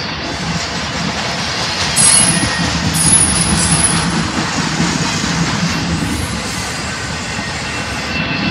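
Intermodal freight cars rolling past at close range: a steady rumble of steel wheels on rail, with a thin, high wheel squeal about two to three and a half seconds in.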